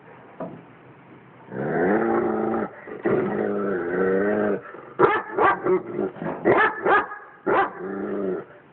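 A dog vocalising at a cat: two long, drawn-out whining cries, then a quick run of about seven short barks, and another long whine near the end.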